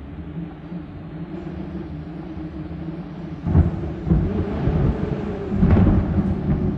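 Film-teaser sound design: a steady low drone with two deep, thunder-like rumbles, one swelling about three and a half seconds in and a louder, longer one from about five and a half seconds.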